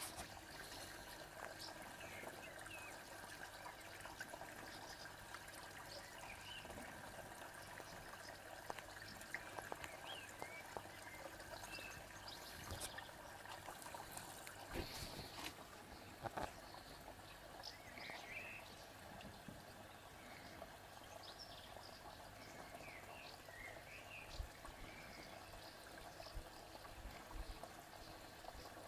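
Faint outdoor background ambience: a steady low hiss and hum, with scattered short high chirps and a few soft knocks in the middle.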